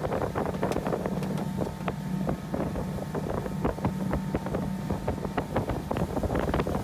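Outboard motor of an inflatable Zodiac boat running steadily under way, a constant low hum. Many short sharp slaps and clicks sound over it, with wind on the microphone.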